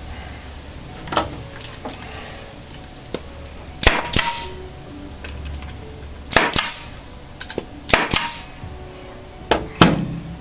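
A run of sharp knocks, mostly in close pairs about two seconds apart, over a low steady hum.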